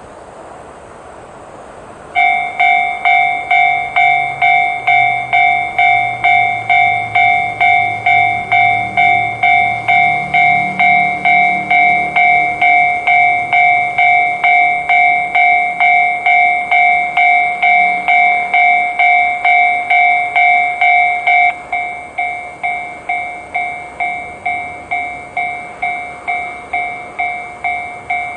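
Japanese railway level crossing alarm, the JR standard electronic warning sound, starting about two seconds in and ringing in sharp, evenly spaced dings about twice a second. About twenty seconds in it turns noticeably quieter and keeps ringing.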